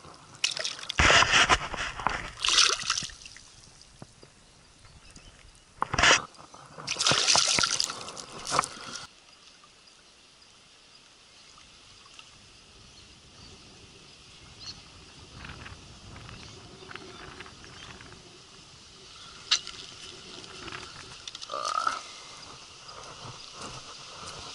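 Water splashing loudly in several bursts over the first nine seconds or so as a small barramundi is let go from the hands in shallow river water, then only faint river-edge sounds with an occasional click.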